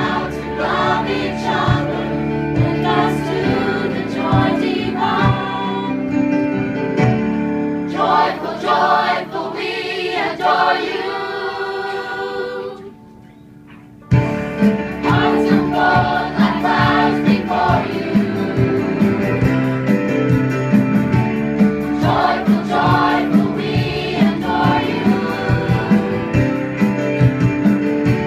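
A choir of children and adults singing. Just before halfway the sound drops away for about a second and a half, then the singing comes back all at once.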